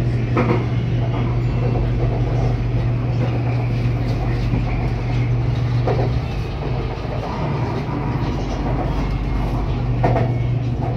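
BTS Skytrain elevated metro train running, heard from inside the car: a steady low hum with running noise over it and a few short knocks.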